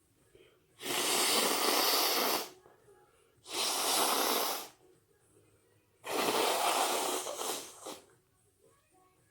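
A person sneezing wetly three times, each sneeze a long hissing blast of breath and spray; the third is the longest and breaks up near its end.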